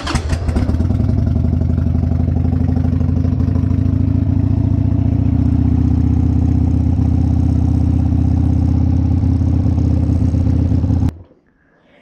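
Harley-Davidson Sportster's air-cooled V-twin started with the choke (enrichener) pulled out, catching at once and idling steadily on the new choke cable, then switched off suddenly about a second before the end.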